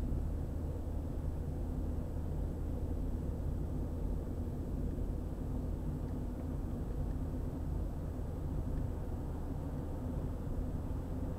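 Steady low rumble of a car driving at road speed: tyre, wind and engine noise with no distinct events.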